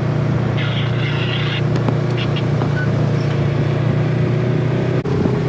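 Side-by-side UTV engine running steadily under way, with a short hiss about a second in.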